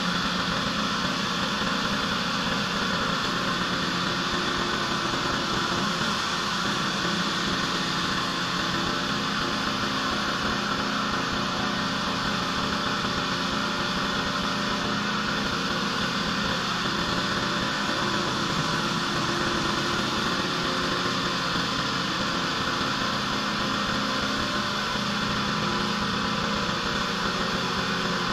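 Pressure washer running steadily: an even engine drone with hiss and no let-up.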